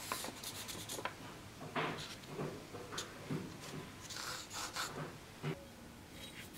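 Marker tracing along the edge of a steel sword blank onto paper: faint, irregular scratchy strokes with paper rustling and rubbing.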